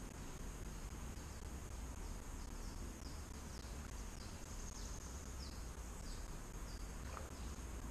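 Riverside ambience: a steady high insect drone, with a bird giving a run of short down-slurred notes through the middle, over a low rumble.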